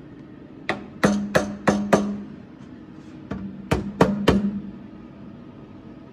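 Hammer blows on a steel car outer sill, in two quick runs of about five and then four strikes, each with a brief metallic ring. The sill is being knocked up and formed in against the inner sill lip before it is tacked.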